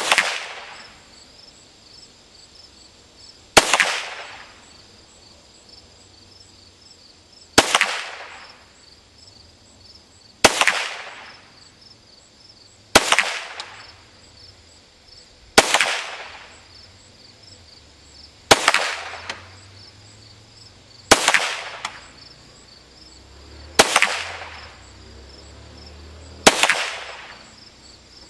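Ruger Mark III Competition .22 LR pistol firing CCI Stinger rounds: ten sharp shots, one every three seconds or so, each trailing off in an echo.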